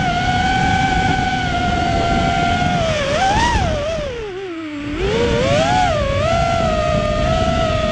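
Four Emax 2205 2600 kV brushless motors spinning DAL 5045 three-blade props on a QAV210 FPV racing quadcopter, heard from its onboard camera: a loud buzzing whine with a low rush of air under it. The pitch wavers with the throttle, jumps up briefly, then drops steeply as the throttle is cut about four and a half seconds in and climbs back as power comes on again.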